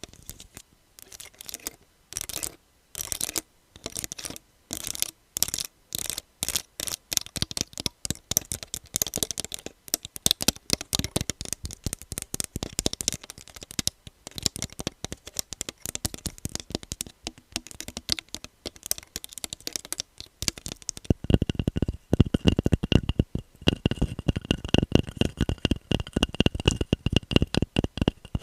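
Fingernails tapping and scratching rapidly on assorted hard objects, in short separate runs at first and then continuous. About three-quarters of the way in it moves to a fuller-sounding object that gives off a steady high ringing tone under the taps.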